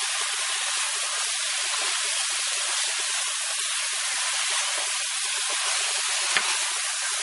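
Chicken pieces sizzling in hot oil with onion and ginger-garlic paste in a stainless steel pot as they are stirred with a wooden spoon: a steady hiss, with one sharp tap a little after six seconds.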